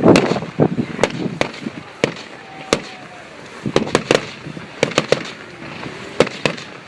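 Firework display: a string of sharp bangs at irregular intervals, sometimes two or three in quick succession, loudest in the first moments.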